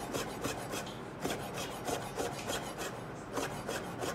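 Chef's knife slicing a sheet of rolled flour dough into thin strips on a plastic cutting board: quick, even strokes about six a second, with two brief pauses.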